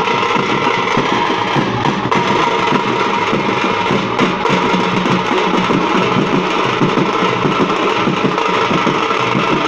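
A village drum band playing: several strap-slung drums beaten together in a dense, continuous rhythm with no break.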